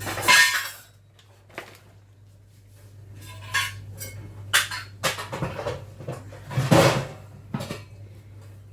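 Metal baking tins clattering and knocking together as they are taken off a cupboard shelf: a string of separate knocks and rattles, loudest just after the start and again just before seven seconds in, over a low steady hum.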